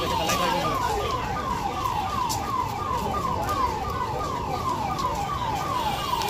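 A siren-like electronic tone repeating rapid falling sweeps, about three a second, very evenly spaced, over a steady crowd hubbub.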